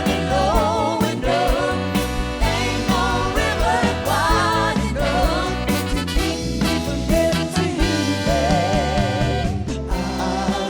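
Upbeat Motown-style soul song: sung notes with a wide vibrato over a full band, with a stepping bass line and a steady beat.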